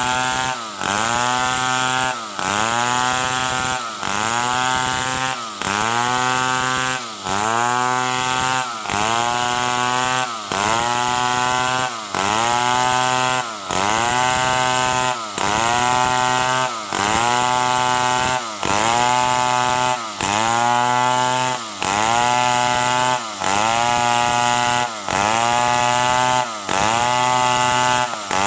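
Stihl 070 two-stroke chainsaw cutting wood into boards, its engine pitch dipping and climbing again in a regular cycle about every second and a half, with a brief drop in loudness between cycles.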